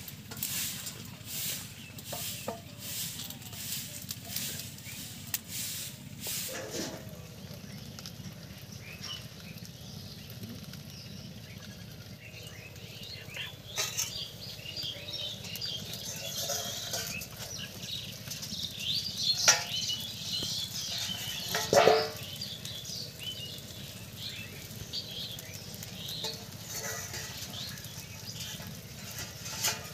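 Mourala fish paste cooking in a banana leaf over a wood-fired clay stove, sizzling and crackling with many small high ticks through the middle. There is a quick, even run of soft strikes in the first few seconds and two sharp knocks about two-thirds of the way in.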